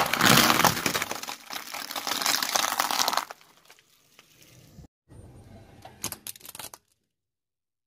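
A car tire rolls over a cardboard box with something crunchy inside, crushing it with a loud crackling crunch for about three seconds. Near the end, a tire meets small colourful cubes and there are a few short, sharp cracks.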